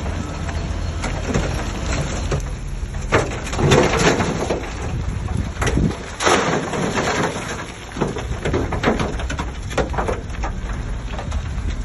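A heavy diesel bulldozer at work: a steady low engine rumble with irregular clanks and bursts of scraping noise, the loudest of them about four and six seconds in.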